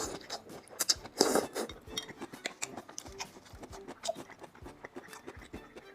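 Close-miked eating sounds: cutlery clicking and clinking against a dish, with many small sharp clicks and a louder noisy burst about a second in.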